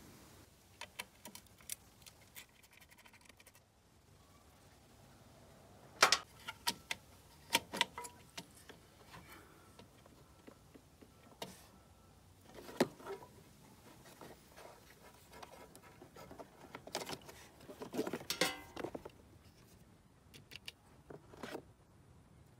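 Metal hand tools being handled while working on a scooter: scattered clinks and short rattling clatters of a ratchet, sockets and bolts. The loudest clatters come about six seconds in and in a busy flurry around eighteen seconds.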